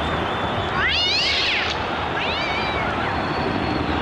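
Spooky cat yowls as a sound effect: two drawn-out meows that rise and fall in pitch, the first and louder about a second in, the second shortly after the two-second mark, over a steady rushing noise.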